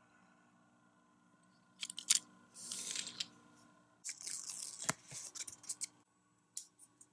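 Paper sticker sheet and small plastic toy parts being handled: bursts of crinkly rustling with a few sharp clicks, the loudest about two seconds in and another about five seconds in.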